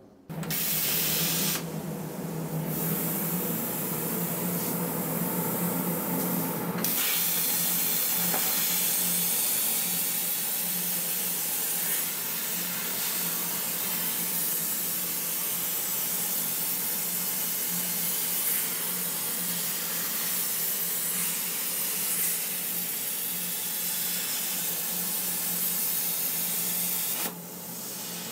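CNC plasma cutter torch cutting through metal plate: a loud, steady hiss of the arc and its air jet over a faint low hum. It starts just after the beginning, grows a little louder about a quarter of the way in, and drops away near the end.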